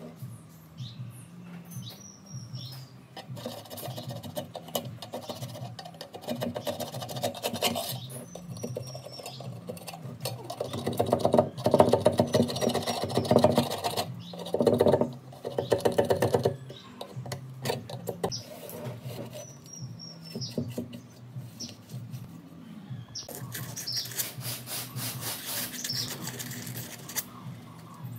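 Hand tool scraping residue off a loudspeaker frame in uneven bouts of short scratchy strokes, heaviest towards the middle and again near the end.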